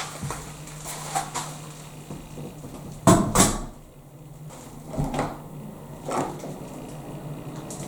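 Several separate knocks and clatters of objects being handled, the loudest a double knock about three seconds in, over a steady low hum.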